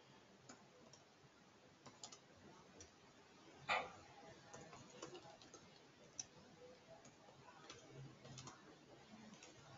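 Faint, scattered keystrokes on a computer keyboard, typing at an uneven pace, with one louder click a little under four seconds in.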